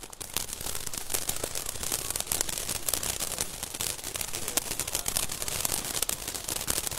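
Ground fountain firework spraying sparks, crackling continuously with a dense run of small pops. It gets going just after the start and keeps an even level.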